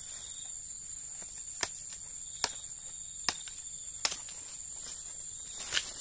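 Insects keeping up a steady high-pitched drone, with five sharp clicks spread through it, the loudest about four seconds in.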